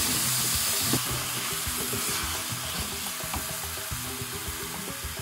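Diced tomatoes sizzling in a hot metal pan of fried onions and spices, stirred and turned with a wooden spatula; the sizzle is steady and slowly eases off as the wet tomatoes cool the pan.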